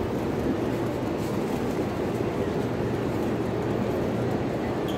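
Steady reverberant din of a busy railway station hall, the mixed noise of people and rail traffic echoing under the roof.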